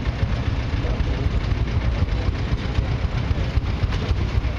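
Old tractor engine running steadily as it tows a wooden threshing machine.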